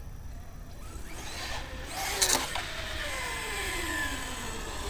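1/10 scale RC monster truck's electric motor whining at full speed. It builds as the truck approaches, passes with a brief sharp burst about two seconds in, then drops steadily in pitch as it runs away and slows.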